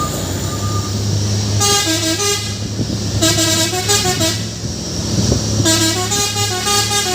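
Truck telolet horn playing a tune: three phrases of stepping, multi-tone horn notes about a second or more each, with the truck's engine running steadily underneath.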